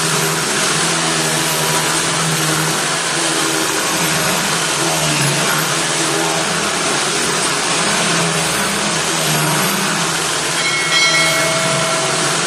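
A woodworking power machine running steadily: a loud, even noise with a thin high whine above it.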